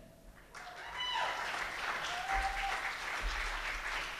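Audience applauding, starting about half a second in after the music stops.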